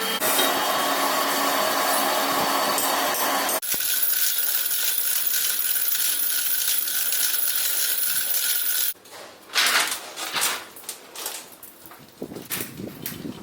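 Lathe turning a workpiece: a dense scraping cut for about three and a half seconds, then a steady run with a high whine and hiss that cuts off suddenly about nine seconds in, followed by quieter knocks and metallic clatter.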